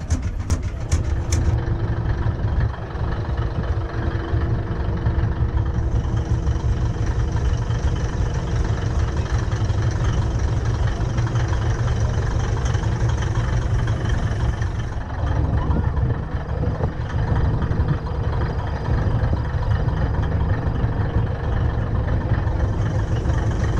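Vintage tractor engines idling: a steady, heavy low rumble that shifts in tone about fifteen seconds in. In the first second and a half a run of sharp knocks, several a second, sits over it.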